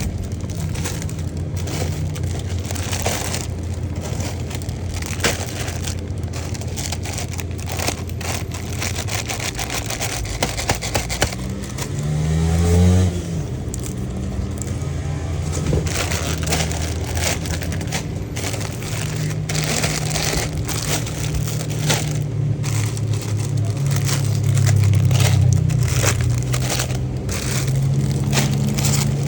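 Parcel packaging being handled and opened: crackling, crinkling and scraping of cardboard and plastic wrap over a steady low hum, with a short rising whine about twelve seconds in.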